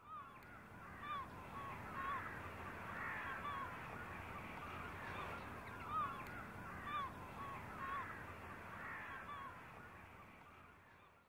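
A flock of birds calling: many short rising-and-falling calls, one after another, over a steady background hiss. The sound fades in at the start and fades out near the end.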